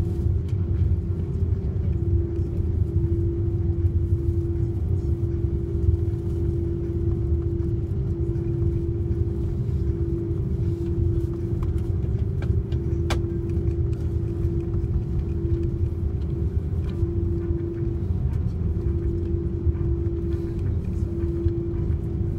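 Cabin noise of an Airbus A330-300 taxiing, with its General Electric CF6-80E1 engines at idle: a steady low rumble, with a steady hum that swells and dips every second or two.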